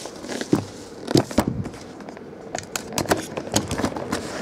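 Scattered light clicks and taps of hands working open a cardboard jersey display box.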